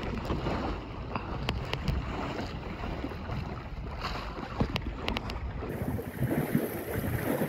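Wind buffeting the microphone and water rushing past the hull of a Wayfarer sailing dinghy under way, with a few light clicks and knocks from the boat. The sound changes abruptly about six seconds in, turning more hissy.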